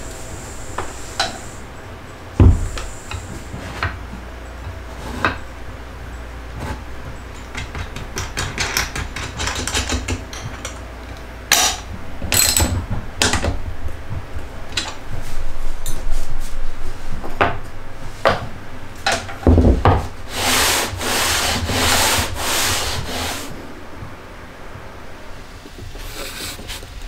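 Wooden pieces and an electric hand planer in its jointer jig being handled on a plywood bench: scattered knocks and clicks, two heavy thumps about two seconds and about twenty seconds in, and a few seconds of rubbing and scraping after the second thump.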